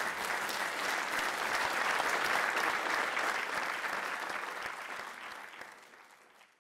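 Audience applauding, a dense patter of many hands clapping that fades out over the last two seconds.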